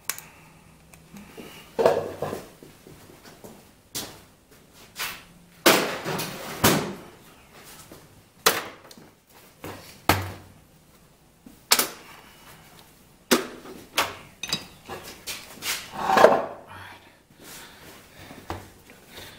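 Irregular knocks and clunks with rustling between them, as the Husqvarna 125B leaf blower and tools are handled and set down on a workbench; the loudest clunk comes about three quarters of the way through.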